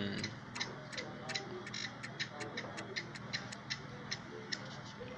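Clock ticking steadily, a sharp tick-tock of about two clicks a second.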